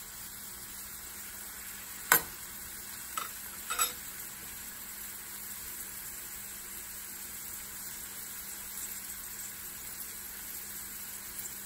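Diced carrot, red onion and garlic sizzling steadily in oil in a stainless steel sauté pan. A sharp click about two seconds in and two lighter ones a second or two later.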